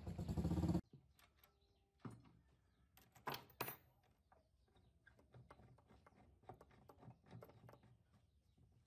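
Background music cuts off just under a second in. It is followed by faint, irregular metal clicks and clinks from a roller chain and a socket wrench being handled on the metal cutter's chain vise, with a few louder knocks around two to four seconds in.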